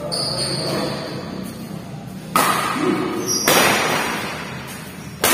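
Badminton rally in an echoing hall: three sharp racket strikes on the shuttlecock in the second half, about a second apart, with short high squeaks of shoes on the court floor.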